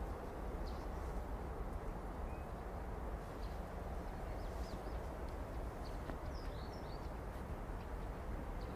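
Outdoor garden ambience: a steady low background rumble with a few faint, short bird chirps scattered through it.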